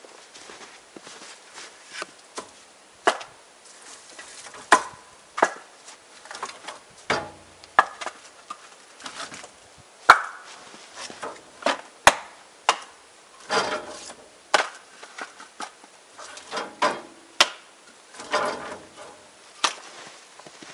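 Split firewood logs knocking together in a string of irregular sharp wooden clunks as they are pulled one by one from a stacked woodpile and gathered into an armload.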